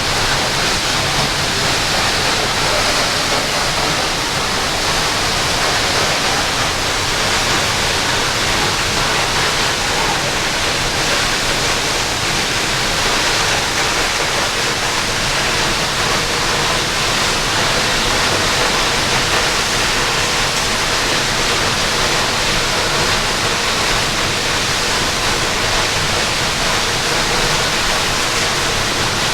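Waterfall rushing steadily: a dense, even hiss of falling water.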